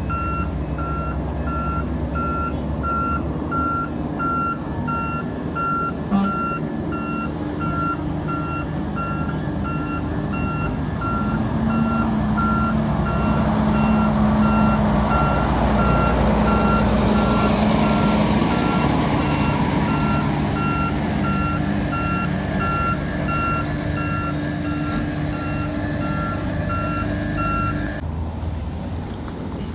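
Asphalt paver's reversing alarm beeping steadily over the rumble of its diesel engine as the machine travels back up the road; the beeping stops near the end while the engine keeps running.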